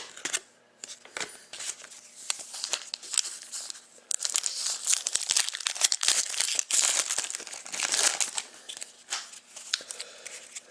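2013-14 Panini Rookie Anthology hockey card pack wrappers being torn open and crinkled, scattered crackles at first, then a dense stretch of crinkling about four seconds in that thins out near the end.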